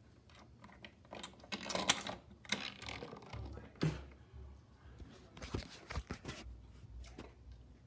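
Plastic toy train playset being handled: irregular clicks and clatter as a toy engine is pushed and set about on the plastic turntable and track.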